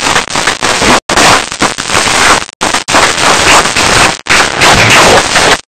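Applause from a small group, loud and close to the microphones, with a few brief dropouts where the sound cuts out.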